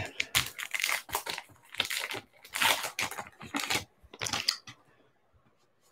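Wrapper of a Topps Allen & Ginter trading card pack being torn open and crinkled, in a string of short, irregular rustling bursts that stop about three-quarters of the way through.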